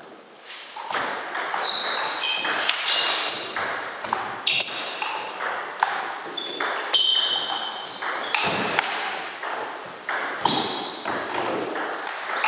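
A long table tennis rally: the ball clicks in quick succession off the rubber-faced bats and the table top, starting about a second in and running on. Short high squeaks from the players' shoes on the wooden floor come between the hits.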